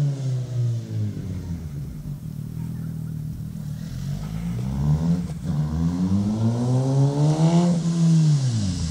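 Suzuki K8 (2008 model year) sport motorcycle engine. Its pitch drops as the bike moves off, then climbs steadily and grows louder as it comes back toward the camera, and drops again near the end as it goes past.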